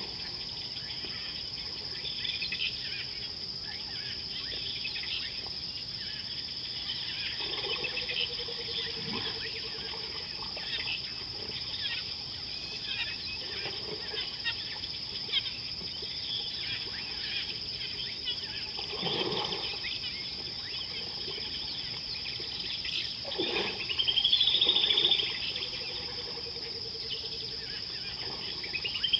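Bush ambience: a steady high-pitched insect drone with birds chirping and calling throughout. A louder, arching call stands out for about a second and a half, some five seconds before the end.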